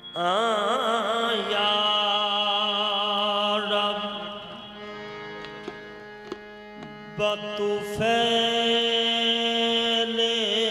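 Qawwali music: long held, ornamented vocal notes over a steady harmonium, with a quieter stretch in the middle marked by a few sparse tabla strokes.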